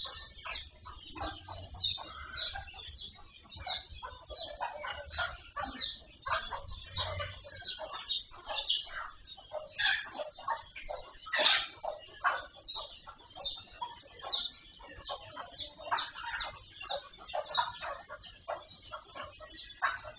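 Birds calling: a quick, steady run of short falling chirps, two or three a second, with lower clucking calls of chickens mixed in.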